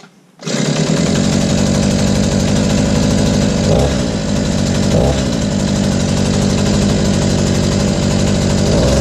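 A 49cc Go-Ped scooter engine catches about half a second in and runs steadily, its pitch changing briefly twice around the middle. It starts and keeps running on a new carburetor and spark plug, after the old carburetor flooded it and fouled the plug.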